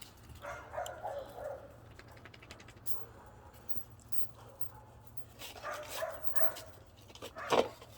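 Puppy barking and yipping in short bouts: one about half a second in, another around six seconds, and a louder one shortly before the end.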